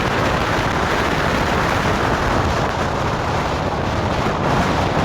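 Strong wind blowing and buffeting the microphone: a steady loud rushing with a rough low rumble.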